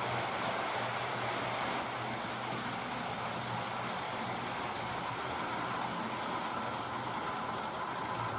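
H0-scale model train running along the track: a steady rush of wheels rolling on rails, with a low motor hum.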